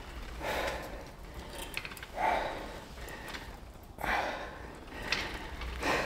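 A man breathing heavily while straining through a set on a pullover machine: four loud breaths, about two seconds apart.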